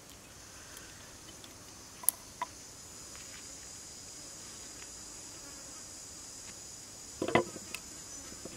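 Insects droning steadily at a high pitch. A couple of light clicks come about two seconds in, and a short clatter about seven seconds in is the loudest sound; it fits a steel cleaver being set down on a wooden chopping board.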